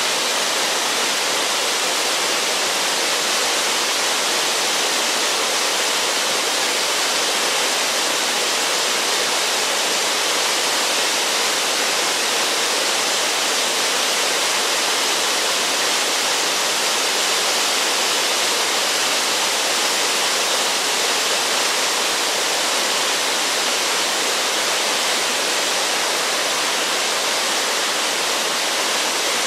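Waterfall pouring over rock into its plunge pool: a steady, unbroken rush of falling water.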